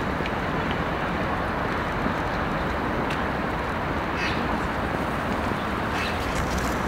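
Steady outdoor street noise, an even hiss of distant traffic, with a short high chirp about four seconds in.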